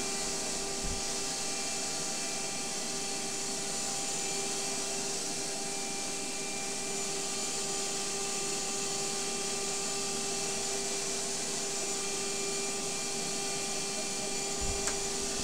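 Electric vacuum cleaner running steadily, a constant rushing noise with a steady motor whine. A soft bump about a second in and another near the end.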